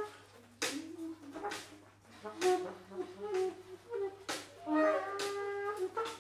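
Free-improvised jazz: saxophones playing short, halting phrases over sparse drum strikes, about one sharp hit a second.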